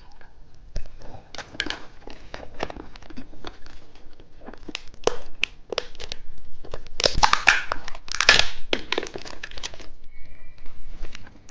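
Plastic candy wrapper crinkling and tearing in the hands, a string of small crackles and clicks, loudest and densest about seven to nine seconds in.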